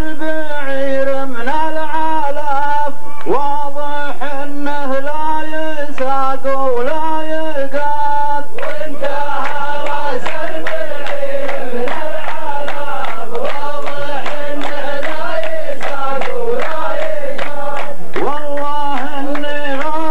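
A group of men chanting a poem's verse together in a held, melodic line, the sung phrase repeating over and over.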